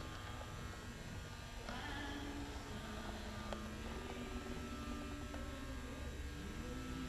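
A steady electrical hum and buzz over low room noise, with faint, indistinct pitched sounds from the background a couple of times.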